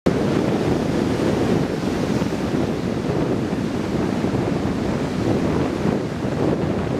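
Heavy hurricane-driven surf breaking and washing ashore in a steady, dense roar, with wind buffeting the microphone.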